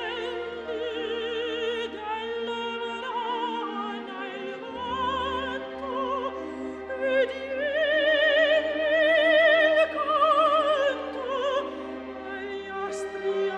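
Background music: an operatic voice singing with wide vibrato over classical accompaniment, swelling to a louder, higher phrase in the middle before settling again.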